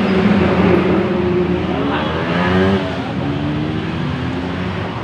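A motor vehicle engine passing close by, its pitch rising and falling and loudest in the middle.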